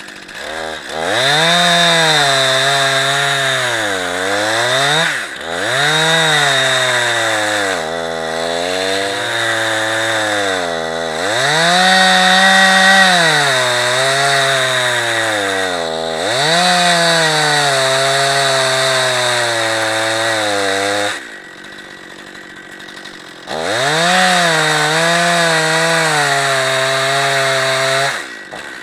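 Two-stroke gas chainsaw on an Alaskan-style chainsaw mill ripping a 2-inch slab lengthwise from a log. The engine pitch sags under load and climbs back again and again, falls away for about two seconds a little past two-thirds through, then runs back up to speed.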